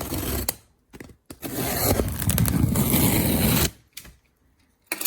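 A cardboard box being opened and its packaging handled: short scrapes and knocks, then a loud scraping, rustling stretch of about two seconds, then a few brief knocks near the end.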